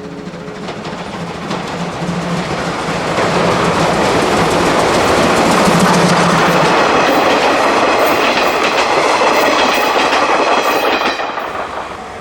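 Steam-hauled train led by the C12 steam locomotive passing, its wheels clattering over the rail joints. The noise swells over the first few seconds, holds, and falls away about eleven seconds in.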